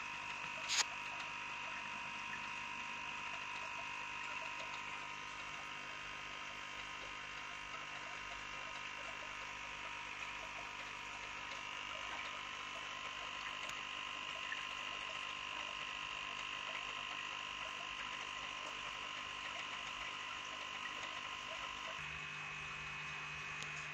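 Steady electrical hum with a high whine, like aquarium air pumps running in a fish room, with one sharp click about a second in.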